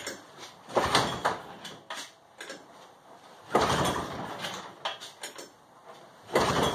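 Three hand pulls on the recoil starter of a Zanzottera MZ-34 two-stroke paramotor engine, a few seconds apart. Each gives a short rasping crank that dies away at once: the engine is not catching.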